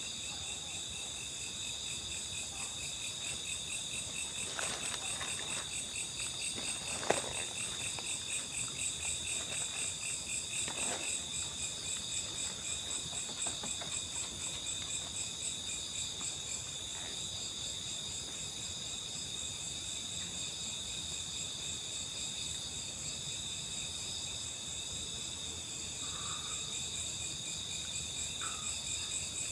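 Steady night chorus of crickets and other insects, a dense pulsing high-pitched chirring. A sharp knock about seven seconds in, and a couple of softer clicks around it.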